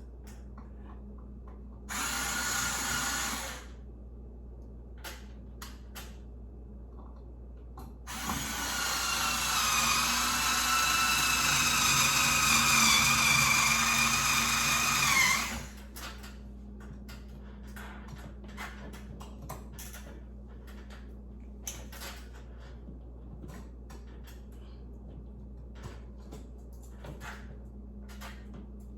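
Power drill run in two bursts: a short one of about a second and a half, then a steady motor whine of about seven seconds that winds down as the trigger is released. Faint small clicks and taps follow.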